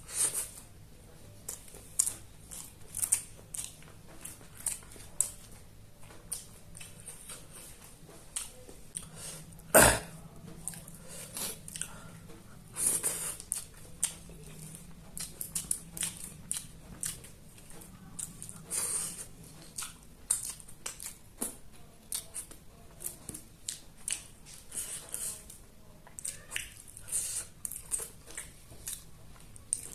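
A person eating chicken dishes: chewing and biting with many irregular short, crisp clicks and smacks, and one sharp, louder click about ten seconds in.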